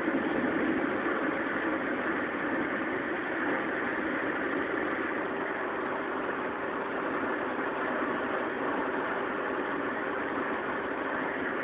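Steady in-cabin drone of a Volvo B7R coach cruising at about 100 km/h: engine and road noise with a faint steady hum, unchanging throughout.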